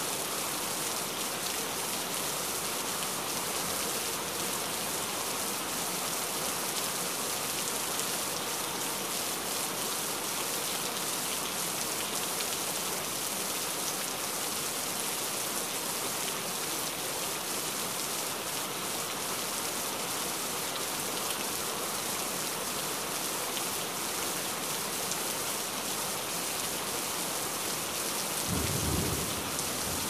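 Heavy rain falling in a steady, dense downpour, with a short low rumble of thunder near the end.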